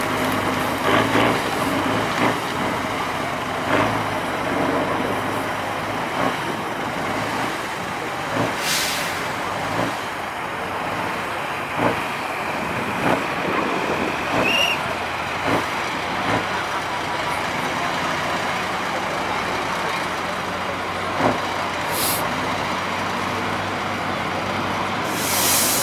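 Tatra 813 6x6 trial truck's diesel engine running under load as the truck crawls through deep mud, with repeated knocks and clunks from the chassis. There are three short hisses of released compressed air from its air-brake system, about a third of the way in and twice near the end.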